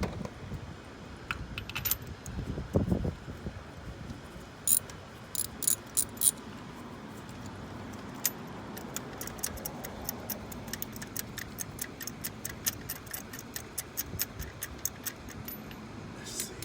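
Socket ratchet clicking while a spark plug is being backed out. There is a dull knock about three seconds in, then a few loud clicks, then an even run of about four to five clicks a second for several seconds.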